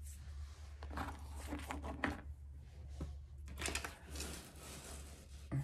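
Faint, scattered scrapes and rustles of handwork as lightweight spackling 'frosting' is worked onto the top of a fake cake, over a steady low electrical hum.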